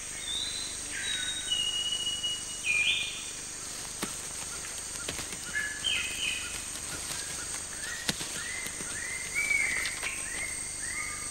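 Rainforest birds whistling: a few clear whistled notes, then from about eight seconds in a run of short repeated whistles, a few a second, over a steady high insect drone.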